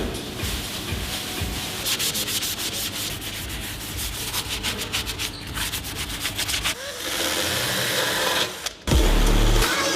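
Sanding on car bodywork: irregular rubbing strokes that turn into a steadier hiss about seven seconds in. Loud music with a heavy bass cuts in near the end.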